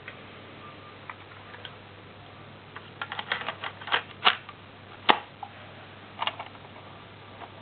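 Plastic clicks and rattles of a cassette tape being handled and loaded into a portable cassette player's tape compartment: a quick run of small clicks, then a few louder single snaps, the sharpest about five seconds in.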